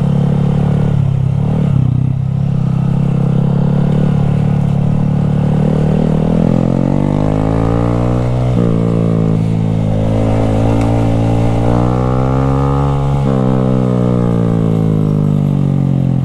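Honda Grom's 125 cc single-cylinder four-stroke engine, with its exhaust baffle out, pulling hard and revving up twice through the gears. The pitch drops suddenly at each upshift, about halfway through and again near the end.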